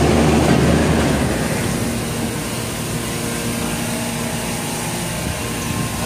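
Rooftop air-cooled chiller and condensing units running: a steady mechanical drone of compressors and condenser fans with several fixed tones. A deeper low hum drops away about a second in.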